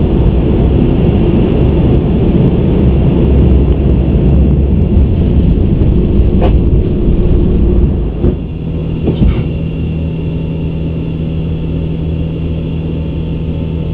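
Airbus A350 cockpit noise in the initial climb: a loud, steady low rumble of airflow and Rolls-Royce Trent XWB engines at takeoff thrust, with a few knocks. About eight seconds in, the rumble drops to a quieter, steadier hum, as the just-selected landing gear finishes retracting and its doors close.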